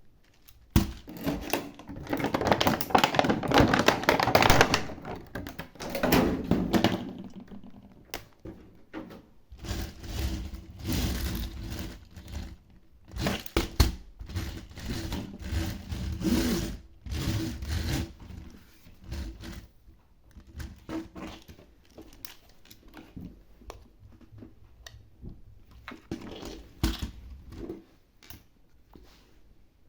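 Toy stunt car being handled, with irregular clattering, clicks and knocks. It is loudest over the first few seconds, then comes in scattered bursts that grow sparser toward the end.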